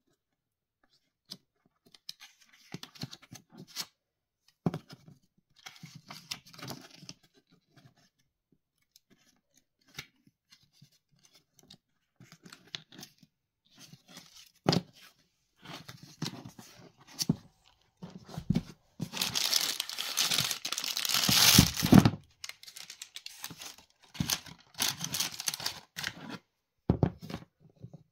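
Hands handling unboxing materials: the pages of a small paper instruction booklet are leafed through and rustled in scattered bursts, with a louder stretch of continuous crinkling about two-thirds of the way through.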